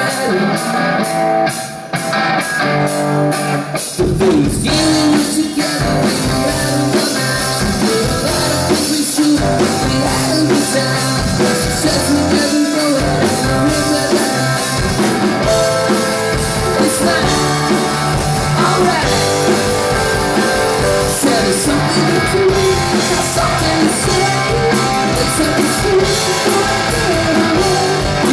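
A live rock band playing through guitar amplifiers: electric guitars, bass and a drum kit. The full band, bass included, comes in about four seconds in after a lighter opening.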